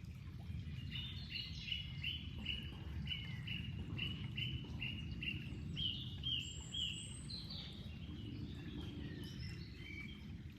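Flowing water making a steady low rush, with a bird singing a long run of short repeated chirps, about two or three a second, and a few other bird calls near the end.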